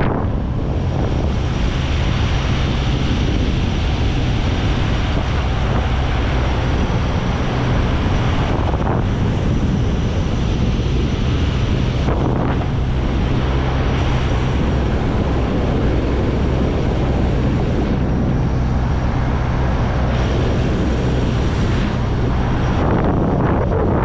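Wind rushing over the microphone of an action camera mounted on the outside of a moving car, over the steady low hum of the car's engine and tyres on the road.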